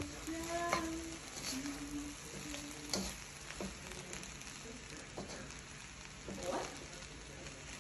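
Shrimp fried rice sizzling in a wok as a spatula stirs it, with a sharp scrape of the spatula against the pan every second or two.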